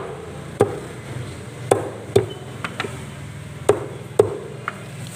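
Cleaver chopping raw chicken feet on a thick wooden chopping block: about five heavy chops at uneven intervals, with a few lighter knocks between.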